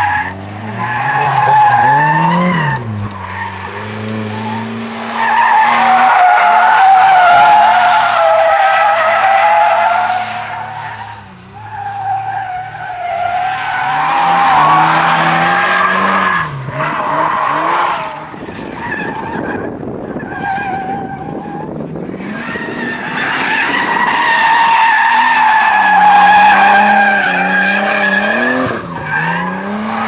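Drift cars sliding sideways through a bend, their tyres squealing in long wavering howls as the spinning rear tyres smoke. Under the squeal the engines rev up and down as the throttle is worked.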